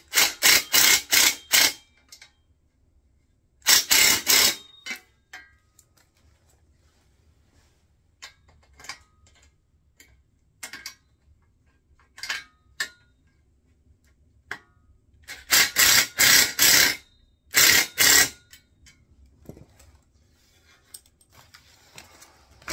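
Nuts being tightened on a steel wheelbarrow frame with a ratchet spanner, clicking rapidly in bursts: one at the start, a shorter one about four seconds in, and two more after about fifteen seconds. Small metal ticks and clinks fall in between.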